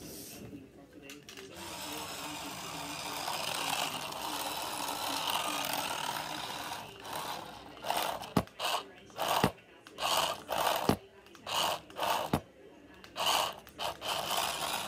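Small electric motor of a toy radio-controlled car whirring steadily, then running in short on-off spurts as the throttle is blipped, with a few sharp clicks among the spurts in the second half.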